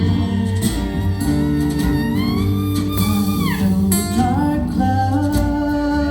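Acoustic folk band playing live: guitar picking under a held melody line that slides up a little past two seconds in and drops away about three and a half seconds in.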